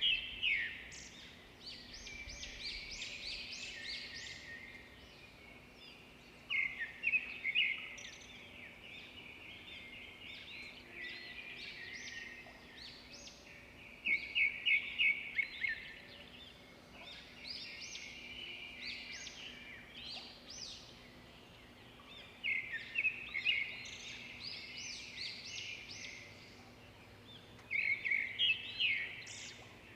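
Songbird song: loud phrases of rapid high chirps about every seven seconds, with softer twittering between them.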